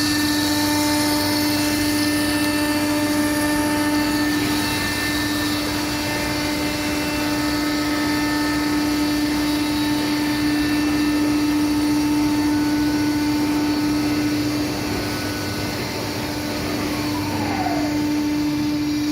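CNC router spindle running steadily at high speed with a carbide tool cutting stone, a constant high hum under a harsh grinding noise. A short falling whine comes near the end.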